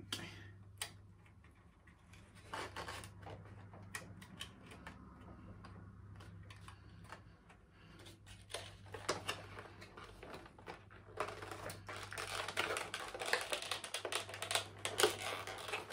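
Scattered clicks and taps of a hard plastic display case and packaging being handled, turning into dense rattling and rustling from about eleven seconds in.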